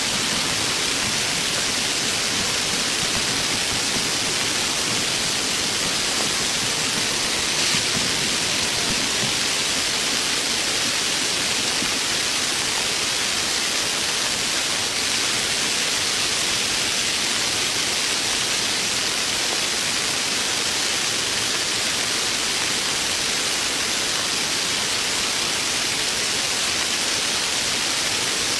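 Heavy rain falling steadily in a forest: a dense, even hiss that does not let up.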